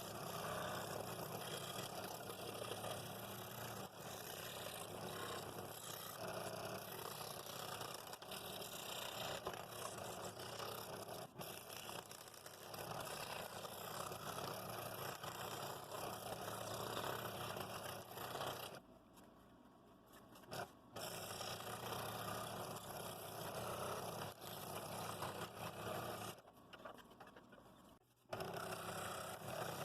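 Scroll saw running and cutting through thin wood, a steady motor hum with the rasp of the blade. It stops briefly twice, about two-thirds of the way through and again near the end.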